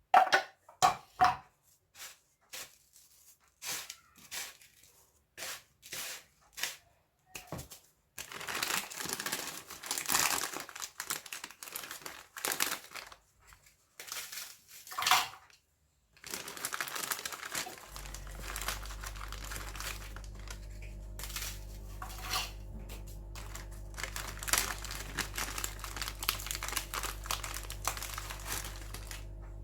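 Dry biscuits being crushed for a cheesecake base: crinkling and crunching in scattered bursts. About two-thirds of the way in, a steady low hum starts and runs underneath.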